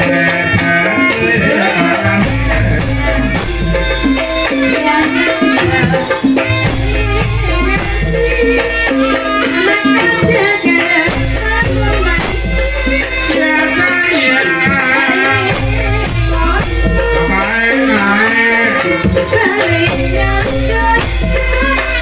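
Live Javanese gamelan music accompanying a Banyumasan ebeg dance: kendang hand drums and bronze kettle gongs playing a dense, steady pattern. Every four to five seconds a deep booming and a bright rattle come in together for a couple of seconds.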